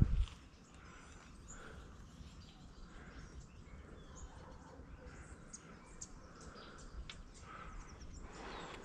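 A low thump right at the start, then quiet outdoor ambience with faint bird chirps and a few small clicks.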